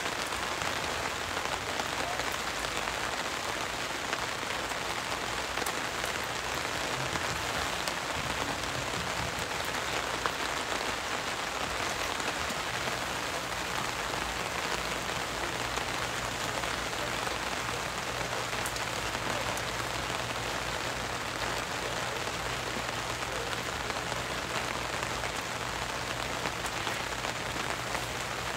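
A steady, even hiss of outdoor noise, with a faint low hum coming in about halfway through.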